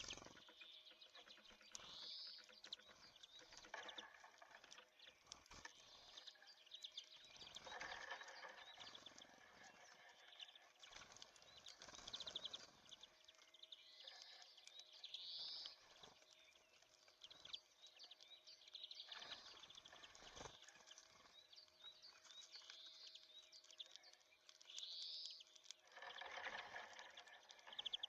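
Small songbirds at a seed feeder: short high chirps and call notes come every few seconds, with many faint ticks and a few brief rustling bursts among them.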